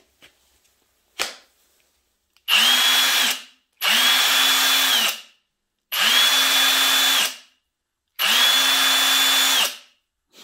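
A single click as the battery pack latches in. Then the Parkside Performance PASSP 20-Li A1 cordless 1/2-inch impact wrench spins freely with no load, its trigger pulled four times for about a second each: a steady motor whine that spins up quickly and winds down at each release.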